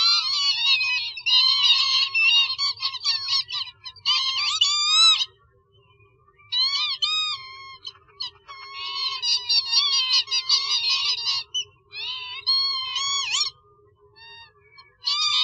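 Northern lapwing calling: rapid strings of rising-and-falling calls, broken by several short pauses.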